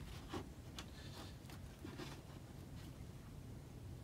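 Faint, scattered rustles and light scrapes as a rope is handled and worked with a craft knife.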